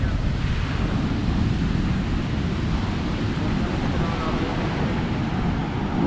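Surf breaking and washing up the sand in a steady rush, with wind buffeting the microphone.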